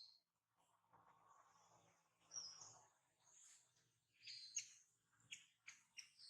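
Faint, high-pitched animal chirps: a couple of short calls in the middle, then a quick run of several short chirps in the second half.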